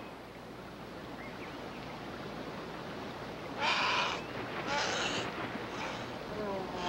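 Steady rushing of river water and wind. From about halfway in come short, high cries roughly once a second, and near the end a longer, lower wavering cry.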